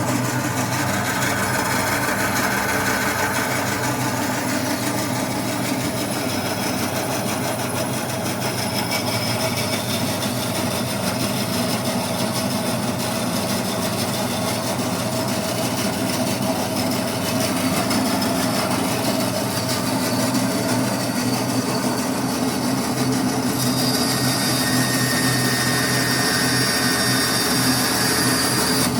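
Bandsaw with a 13 mm resaw blade running steadily on its first test run after being cleaned and recalibrated: an even motor hum with blade and wheel noise. A higher hiss joins about three quarters of the way in.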